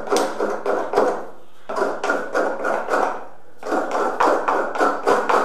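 Coconut being scraped on a hiramana, the traditional stool-mounted serrated coconut scraper: quick repeated scraping strokes in runs of one to two seconds with short breaks between.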